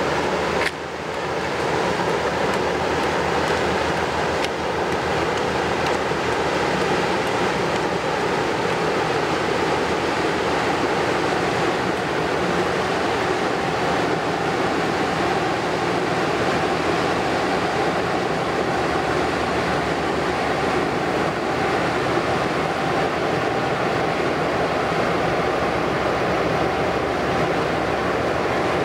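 Inland container ship's diesel engine running steadily as the vessel passes, mixed with the rush of water along its hull.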